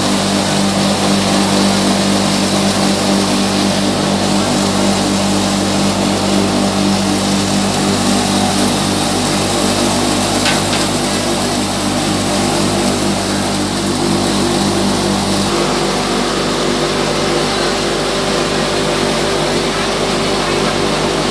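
Rice mill machinery running with a loud, steady mechanical drone and hum. Around two-thirds of the way through, the hum changes character as a different part of the mill is heard.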